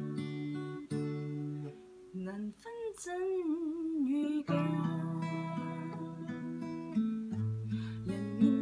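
Acoustic guitar played by hand in ringing chords. A woman's voice sings a short, wavering phrase over it from about two seconds in.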